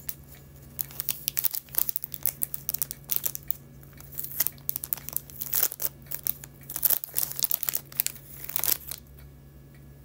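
Crinkly packaging being handled and torn open by hand to take out a rhinestone hair barrette: irregular crackling and rustling that stops about nine seconds in.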